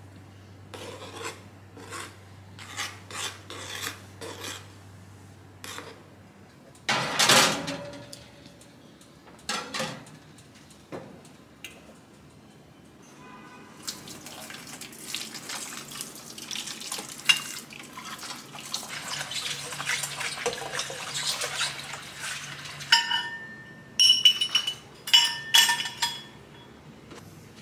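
Kitchen utensil sounds: a small metal spoon tapping and scraping in an aluminium cake pan, with a loud clatter about seven seconds in. Then a tap runs water into a stainless steel sink bowl full of metal utensils, followed by several ringing metallic clinks of utensils.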